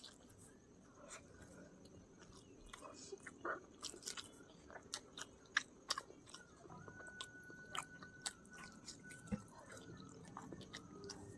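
A person chewing a mouthful of chicken biryani, with many small sharp clicks and smacks of the mouth.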